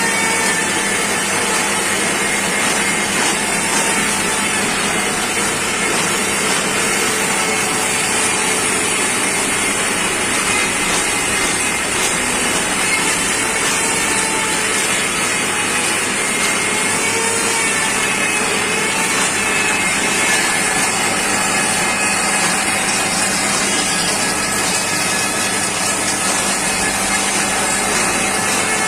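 Lathe running steadily through a machining pass: a loud, even noise of the machine and the cut, with faint wavering tones above it.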